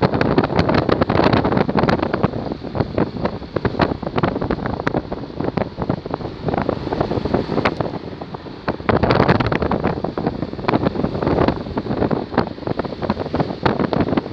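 Wind buffeting the microphone of a camera carried on a moving vehicle, crackling and gusting unevenly over the rumble of the ride.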